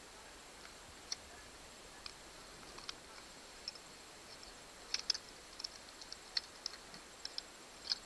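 Small plastic clicks and taps from a MotorGuide handheld remote's red plastic case, circuit board and rubber keypad being handled and fitted together. A few scattered clicks come first, then a quicker run of them about five seconds in.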